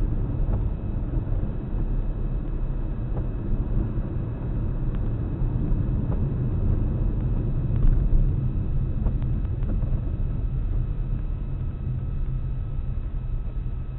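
A car being driven: steady low road and engine rumble, with a brief louder surge about eight seconds in.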